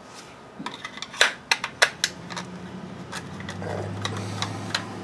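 Plastic clicks and knocks from a cordless-tool battery pack being handled on a workbench, about a dozen sharp clacks over a few seconds. A low steady hum comes in about halfway.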